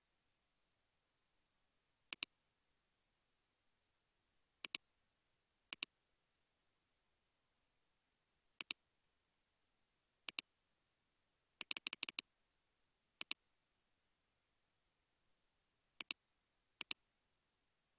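Computer mouse clicks, each a quick double tick of press and release, spaced irregularly, with a fast run of several clicks about two-thirds of the way through; near silence between them.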